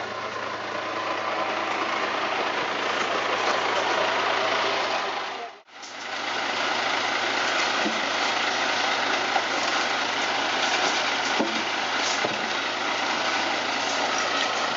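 Engine of heavy machinery running steadily with a continuous low hum, broken by a sudden, very short gap about a third of the way through.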